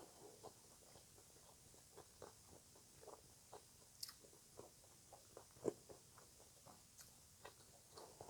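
Faint, close-miked chewing of green papaya salad: irregular soft crunches and wet mouth clicks, with one louder crunch a little before six seconds in.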